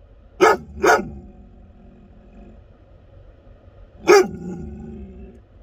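American Akita barking inside a car: two loud barks close together, then a single bark about four seconds in that trails off for about a second.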